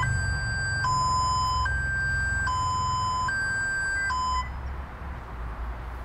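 Car-alarm sound played from a Bluetooth speaker hidden under a car: two tones alternating high and low, each held a little under a second, cutting off about four and a half seconds in.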